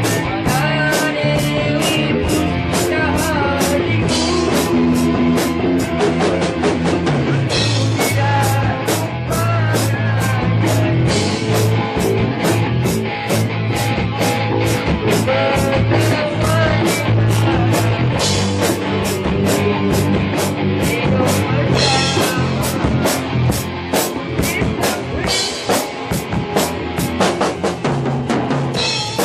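Rock band playing live: a drum kit keeps a steady beat with cymbal hits several times a second, over a loud bass guitar line.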